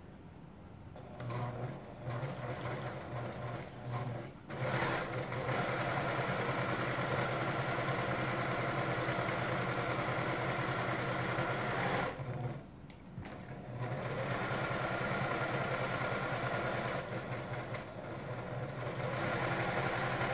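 Pfaff Creative 1475 CD electronic sewing machine stitching through fabric, a steady motor hum with fast needle strokes. It starts about a second in, stops briefly about twelve seconds in, and starts again.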